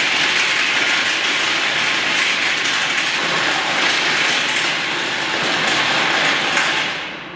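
Electric shaker motor on a steel dirt-sifter table running, vibrating the whole frame and bar grate in a steady rattle. It is switched off near the end and dies away.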